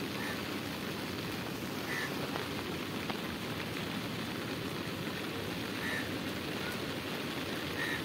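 Steady rain falling on river water and the wet bank: an even hiss, with a few faint short high chirps over it.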